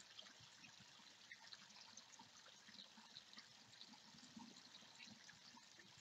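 Faint, steady trickling of water in a small garden pond's stream, with many small drips and splashes.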